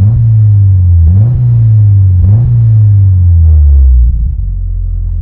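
Subaru WRX turbocharged flat-four revved in neutral, heard from inside the cabin: the revs hold high, dip and climb again about one and two seconds in, then drop back toward idle about four seconds in. A throttle response controller on its most aggressive setting makes a light touch of the pedal open the throttle far.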